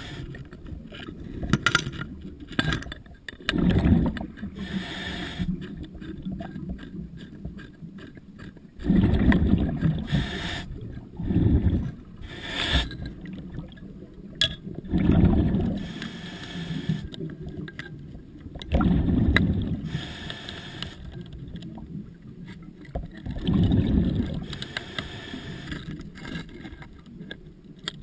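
Underwater, a diver's scuba exhaust bubbles rumble in bursts every few seconds, with scattered clicks and knocks between them.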